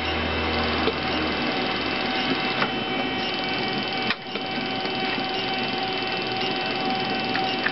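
Stepper motors of a homemade CNC coil winder running steadily, turning the spindle and moving the traverse carriage as string winds onto the spool: a steady whine of several pitches. It briefly cuts out about four seconds in.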